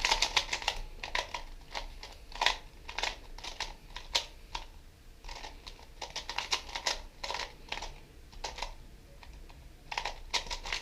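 GAN 251 M magnetic 2x2 speed cube being turned through algorithms: quick runs of plastic clicking turns, with a short pause near the end.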